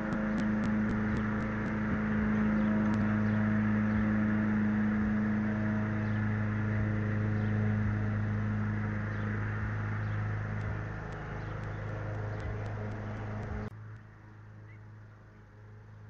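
A steady low mechanical hum with a hiss over it, and a run of quick ticks, about six a second, in the first two seconds. Near the end it cuts abruptly to a much fainter hum.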